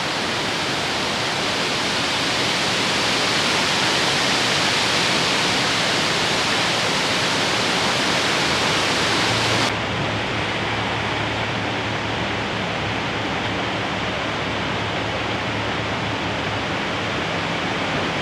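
A steady, loud rushing hiss. About halfway through it suddenly turns duller, and a low steady hum joins it, the engine of a barge passing close by.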